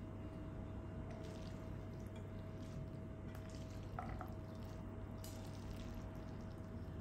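A spatula stirring and tossing cooked noodles with minced meat and grated carrot in a pot: soft, irregular stirring sounds with faint short scrapes, a little more distinct about four seconds in, over a steady low hum and a faint steady tone.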